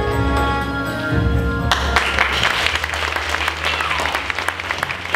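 Music with sustained held notes that cuts off about a second and a half in, followed by an audience applauding.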